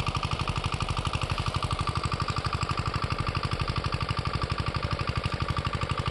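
An engine idling steadily with an even, fast thudding beat, about ten beats a second.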